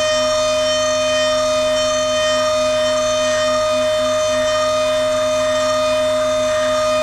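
DATRON neo+ CNC milling machine's high-speed spindle running with a steady high-pitched whine that holds one pitch throughout.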